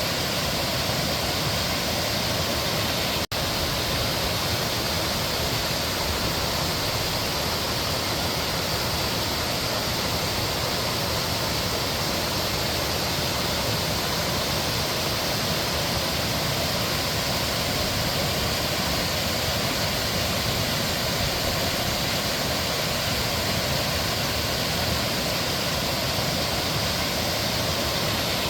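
Mountain stream water rushing steadily over rocks, an even, continuous wash of noise. It cuts out for a split second about three seconds in.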